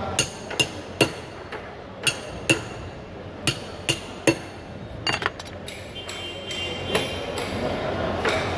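Large knife chopping through a tuna's tail section on a wooden chopping board: a run of sharp knocks, each with a brief metallic ring, about ten in the first five seconds and one more near seven seconds.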